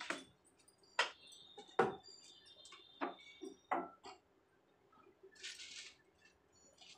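Plastic storage jars being set down and moved about on a wooden kitchen shelf: a series of sharp knocks and clinks, about eight in the first four seconds, then a short hiss about five seconds in.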